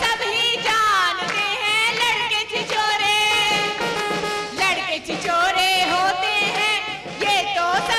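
Qawwali-style singing: a woman's voice at the microphone sings wavering, ornamented lines, with hand clapping in accompaniment.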